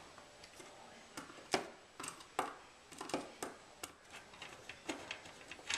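Small irregular clicks and taps of a hand screwdriver snugging machine screws into the standoffs of a quadcopter frame plate, a few each second.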